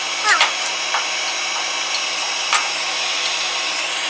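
Handheld electric heat gun blowing steadily, softening old seam sealer, with a few short scrapes of a hand scraper working the sealer out of a body seam.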